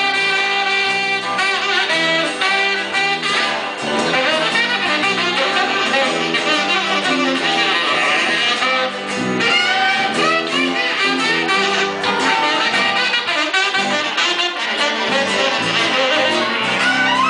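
Live blues band playing an instrumental passage, with a saxophone taking the lead over electric guitar and bass.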